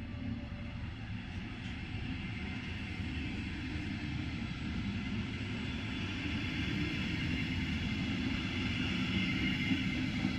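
Electric double-deck regional train rolling past along the track: a steady rumble of wheels on rails with a hiss above it, growing slowly louder toward the end.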